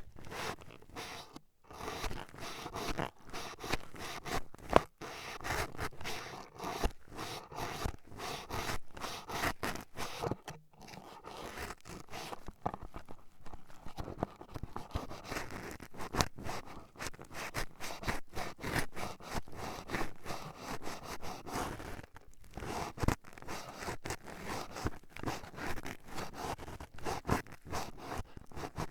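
Toothpick repeatedly jabbing and scraping at the ears of an ASMR microphone, heard close up as a dense run of scratchy clicks and scrapes with a few brief pauses.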